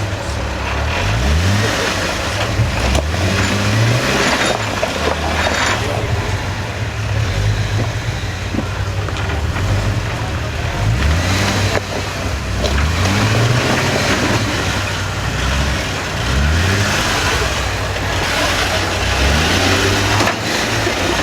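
A lifted Jeep's engine working off-road, revved in repeated short bursts, each rising in pitch before it drops back, over a steady low running note.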